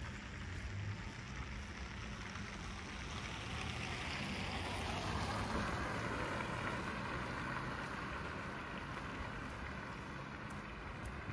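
Street traffic noise: a steady low rumble with one vehicle passing, its tyre hiss swelling and fading about four to eight seconds in.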